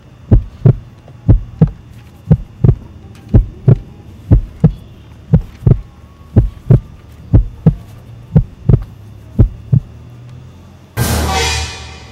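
Heartbeat sound effect: a steady lub-dub about once a second over a low hum. About eleven seconds in, a loud burst of noise cuts in and fades over about a second.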